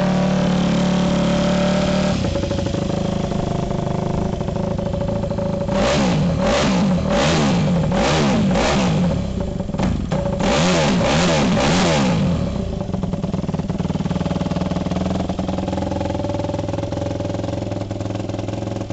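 2007 Yamaha YZ250F's four-stroke single-cylinder engine idling, then blipped hard on the throttle: five quick revs about six seconds in, a short pause, then three more, before it settles back to a steady idle.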